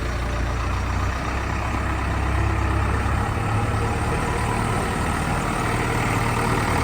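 JCB 3DX backhoe loader's diesel engine running steadily, with a deep low hum whose lowest note drops away about three seconds in.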